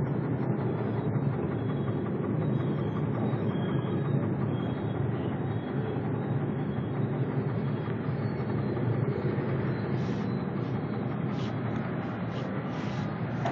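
Bubble tea shaker machine running, its electric motor and crank rocking two sealed shaker cups back and forth with a steady mechanical noise, and a few faint clicks near the end.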